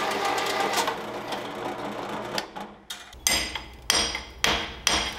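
Drill press driving a hole saw through a metal plate, a grinding cut over the motor's hum that fades out about two and a half seconds in. Then four sharp knocks in under two seconds.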